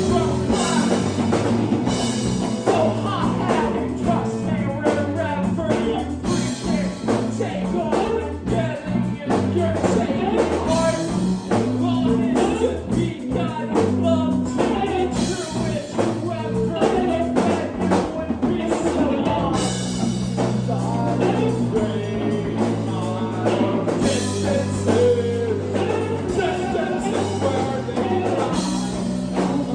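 Live rock band playing with a drum kit and a singer, dense and continuous.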